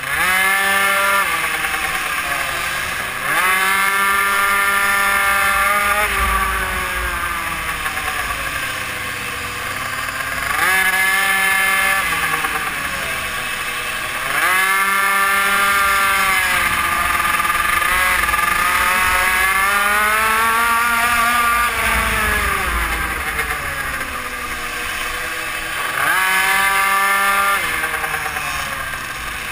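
GRC RR BZM super mini moto engine, heard close up from on the bike, revving hard about five times and dropping in pitch between, as the throttle opens out of each corner and closes into the next.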